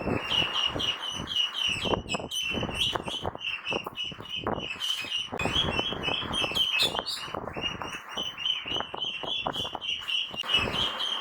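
Ducklings peeping: a continuous chorus of short, high peeps, several a second, with scattered short clicks.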